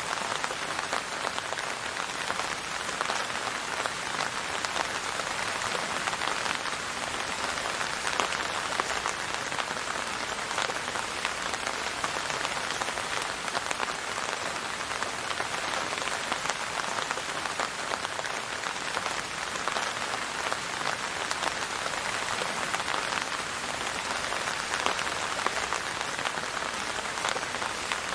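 Steady rain falling, a dense, even spread of small drops hitting close together, unchanging throughout.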